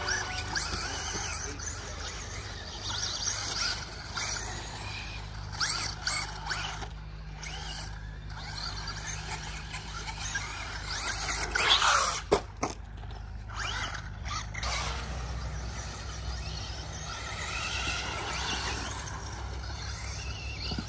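Electric radio-controlled car running, its motor whine rising and falling with the throttle. A few sharp knocks come about twelve seconds in.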